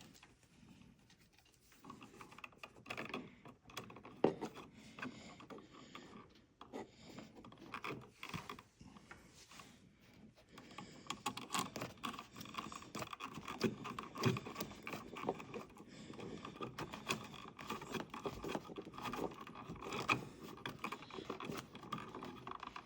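Faint scraping, rubbing and small clicks of electrical wires and a wire connector being handled, with the handling noises growing busier about halfway through.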